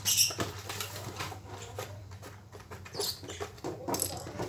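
Cardboard toy packaging being handled: scraping, rustling and light knocks of the box and its insert tray, loudest at the very start and again about three and four seconds in.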